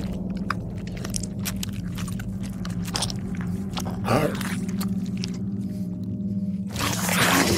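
Added sound-effects track: a steady low drone with scattered clicks and crunches, a short gliding groan about four seconds in, then a loud rushing noise that starts near the end.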